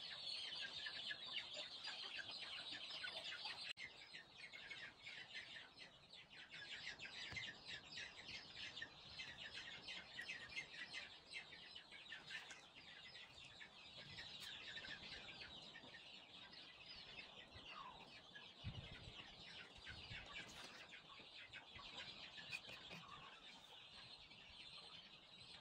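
Faint, steady high-pitched chirping and trilling of night insects, with a few soft low knocks of a knife on a wooden chopping board about three-quarters of the way through.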